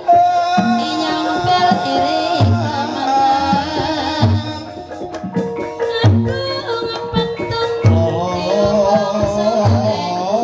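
Live Javanese gamelan music accompanying a kuda lumping dance. Kendang hand-drum strokes keep a regular beat under held metallophone tones, while a high voice sings a wavering melody.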